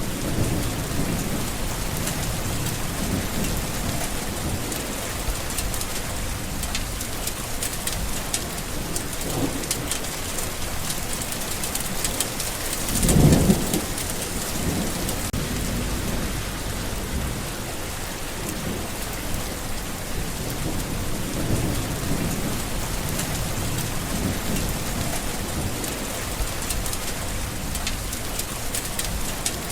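Steady rain with low rumbles of thunder rolling through it, the loudest rumble about halfway through.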